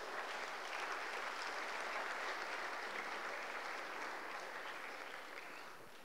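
Audience applauding in a lecture hall, the clapping slowly dying away toward the end.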